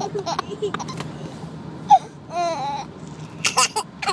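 A baby vocalizing: a few short bursts near the start, a long wavering high-pitched call about halfway in, and more short bursts near the end.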